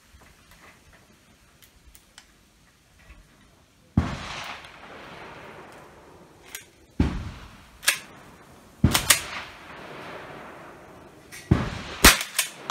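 A series of sharp cracks and metallic clacks from a Remington Model 12 pump-action .22 rifle being worked and fired with .22 long rifle cartridges. The first loud crack comes about four seconds in and trails off over a few seconds, another pair comes near nine seconds, and a rifle shot comes near the end with the rifle shouldered.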